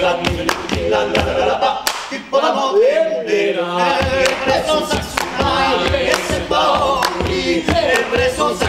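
Male a cappella group singing Occitan polyphony, several voices together, over a steady hand-clap beat of about two claps a second. About two seconds in, the claps stop for a moment while one voice slides upward, then the clapping comes back.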